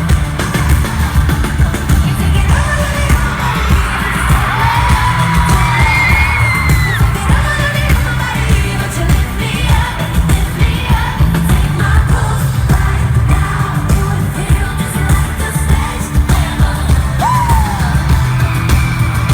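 Live pop music heard from within a concert crowd: female vocals over a heavy, bass-laden backing track, with audience members yelling and cheering over it.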